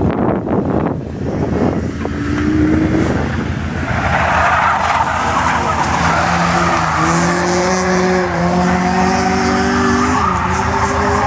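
Two small Honda four-cylinder cars, a Civic and a CRX, cornering hard: engines running at high revs with wavering pitch, and tyres squealing through the turn from about four seconds in.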